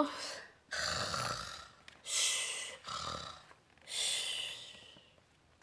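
A woman imitating snoring with her voice: snoring in-breaths alternating with airy, hissing out-breaths, about four in all.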